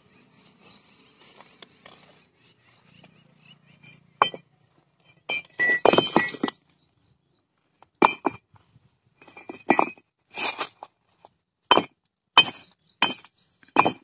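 Fired red clay bricks struck together, giving about a dozen sharp, ringing clinks at irregular intervals, starting about four seconds in. The clear ring is taken as the sign of well-fired, good-quality bricks.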